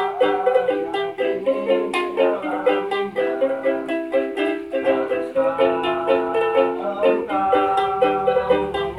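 Small acoustic string instrument strummed in a quick, steady rhythm, playing a run of chords.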